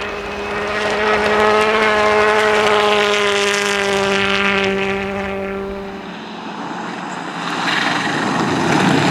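Rally car engine held at steady high revs, a single steady engine note. About six seconds in it gives way to a noisier hiss.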